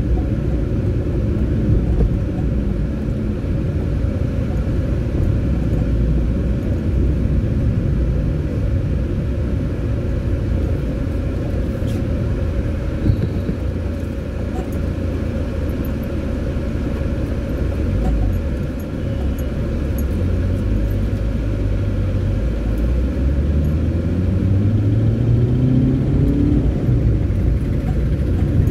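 Car interior noise while driving: a steady low engine and road rumble heard from inside the cabin. Near the end the engine note rises in pitch as the car speeds up.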